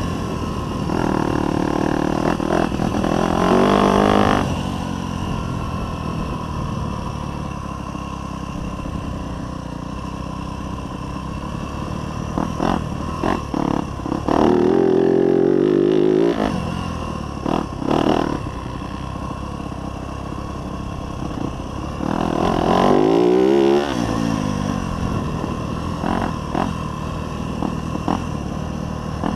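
2024 Yamaha YZ250F dirt bike's single-cylinder four-stroke engine running under a riding load, with three hard accelerations in which the engine note rises, near the start, about halfway and near the end. A few short knocks come in between.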